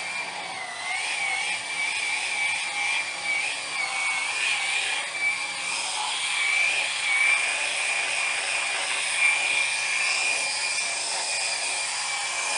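Electric epilator running, a small motor giving a continuous high whine with a buzzing hiss; the pitch wavers a little in the first few seconds, then holds steady.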